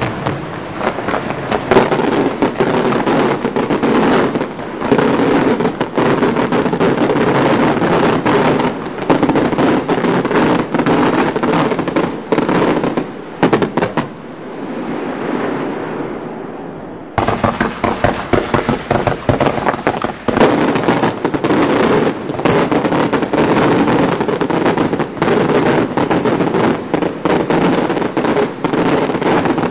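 A rapid, dense barrage of daylight-firework bangs and crackles, many reports a second. About halfway through it eases to a quieter rumble for a few seconds, then breaks out again suddenly.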